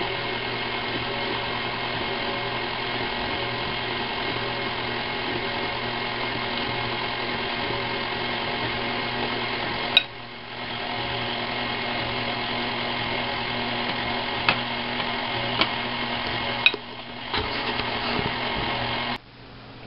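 Electric stand mixer running steadily as it beats fruitcake batter while flour is added, with a few light clicks along the way; it is switched off near the end.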